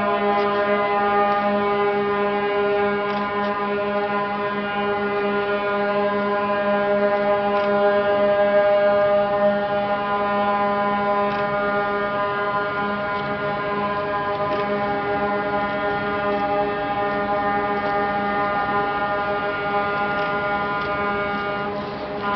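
Ships' horns sounding together in one long, steady chord of overlapping tones, held throughout: the horn salute given as a newly built ship is launched.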